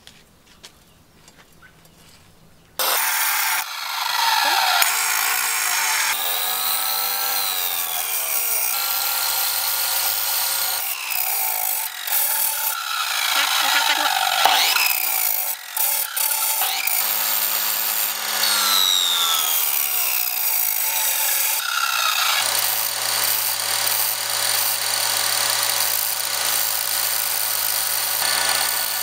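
Red bench grinder's abrasive wheel grinding a steel knife blank, starting abruptly about three seconds in after a near-quiet start. A harsh, continuous grind with a whine that repeatedly slides down in pitch.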